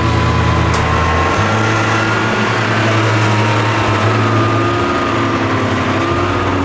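Snowmobile engine running steadily while riding along a snow trail: an even engine drone under a high whine that climbs slowly in pitch and then eases down a little.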